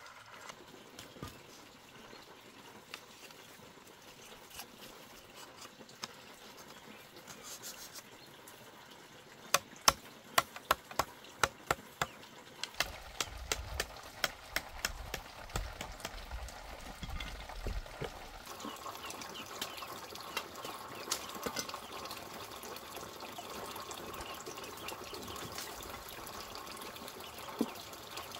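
Bamboo being chopped with a knife: a quick run of sharp knocks lasting a couple of seconds near the middle, with scattered lighter taps before and after and a steady faint background hiss.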